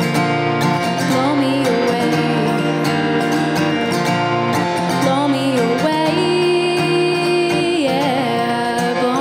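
A woman singing solo with her own strummed acoustic guitar, her voice sliding between notes and holding one long note about six seconds in.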